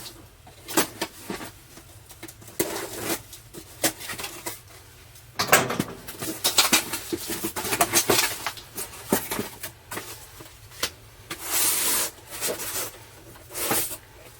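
Irregular rustling, crinkling and clicking as a new humidifier drum pad is handled, busiest for a few seconds around the middle.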